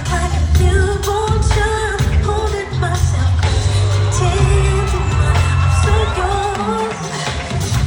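Live pop concert music played loud over the venue's sound system, with strong bass and a lead vocal singing the melody.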